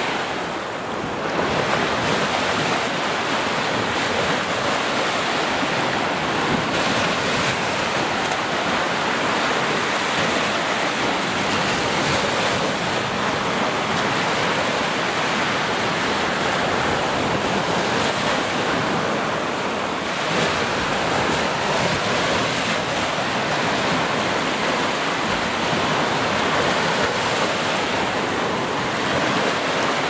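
Small ocean waves breaking and washing up on a sandy shore: a steady rushing surf that swells and eases gently. About a second in, it takes over from the rush of a waterfall.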